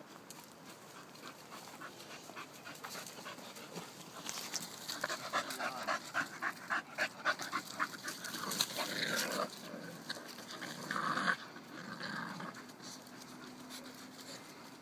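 Dogs play-wrestling, with rapid rhythmic panting of about three breaths a second for several seconds in the middle and a louder burst of activity a little later.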